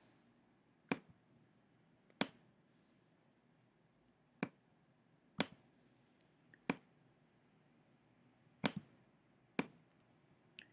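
Computer mouse clicking: eight short, sharp clicks spaced irregularly a second or two apart, as on-screen labels are picked up and dropped into place. The last click is fainter.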